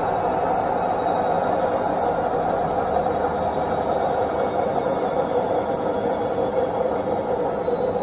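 Indesit IWC71252 washing machine on its spin cycle: the drum and motor give a steady, loud whirring rumble, with a thin high whine that slowly drops in pitch.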